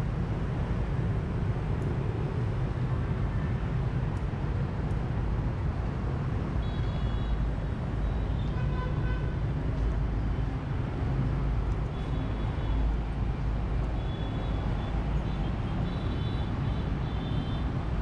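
Steady rumble of city road traffic, with short vehicle horn toots several times.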